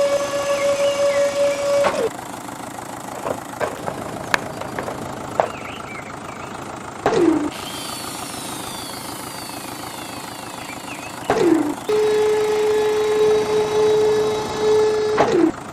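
Machinery running with a steady whine, then clatter with a few sharp knocks and several brief falling-pitch sounds; a lower steady whine comes in about twelve seconds in.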